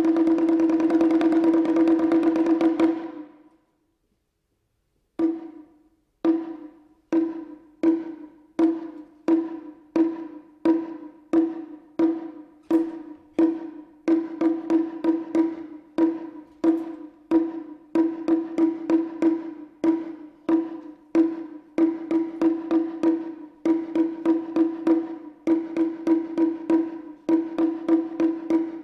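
A high-pitched Japanese taiko drum played in a fast roll that stops about three seconds in. After a short pause it resumes with single strikes, about one a second, quickening to nearly two a second.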